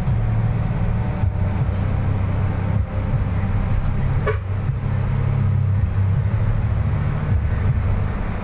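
Steady low rumble of a moving road vehicle heard from inside its cabin: engine and tyre noise on the road. A brief thin squeak comes through about four seconds in.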